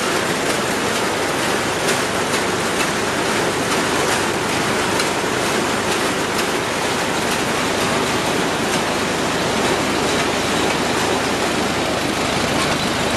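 Allis-Chalmers WD tractor's four-cylinder gas engine running steadily, heard mostly as an even rushing noise with faint ticks and a low hum coming in near the end.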